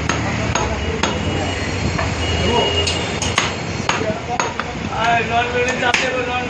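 A butcher's cleaver chopping beef on a round wooden chopping block: a run of sharp chops, some about half a second apart. Background voices can be heard near the end.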